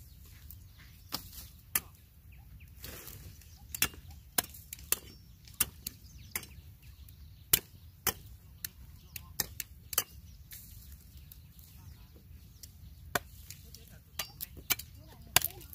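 Large knife chopping harvested cassava roots off their stems: sharp, irregular chops, often one or two a second, with a quieter stretch past the middle.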